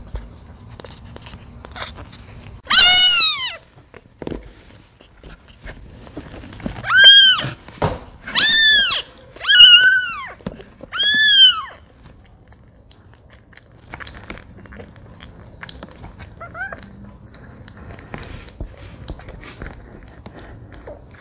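Newborn kitten crying loudly for milk, a high cry that rises and falls in pitch: once about three seconds in, then four cries in quick succession, and a faint one later. Still yelling at the smell of the bottle is a sign that it is still hungry, not yet full. Soft clicks and rustles of handling lie between the cries.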